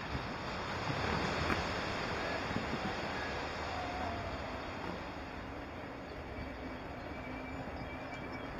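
Steady rush of wind noise on the microphone while riding along on an electric unicycle, with a faint low hum joining about six seconds in.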